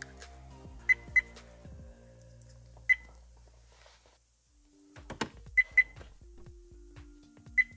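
Viofo dash cam beeping: about seven short, high electronic beeps, some in quick pairs, as the unit is powered up and handled, with a sharp click a little after five seconds in. Soft background music with held notes underneath.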